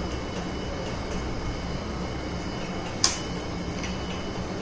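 A single sharp click about three seconds in, from handling a new GoPro 9 Black while it is being opened, over a steady low background hum.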